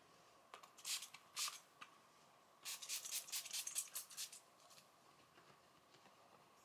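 NYX makeup setting spray misted onto the face from a pump bottle: two single sprays, then a quick run of short hissing sprays.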